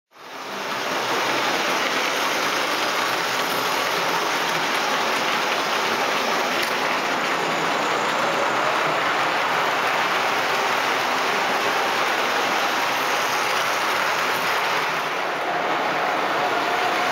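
O gauge model trains running round the layout: a steady dense clatter of metal wheels on the track and the locomotive's motor, fading in over the first second.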